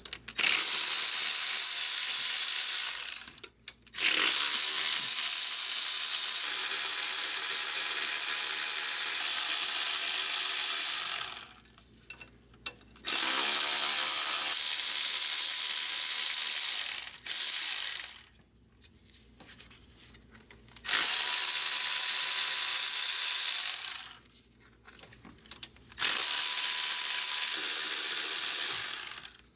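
Cordless electric ratchet whirring in runs of several seconds, about six times with short pauses between, spinning intake manifold bolts out of the cylinder heads.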